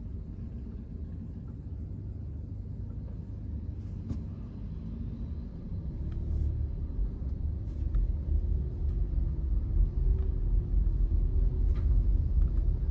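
Car driving in slow traffic: a low rumble of engine and road noise that grows louder about halfway through, with a faint wavering hum above it.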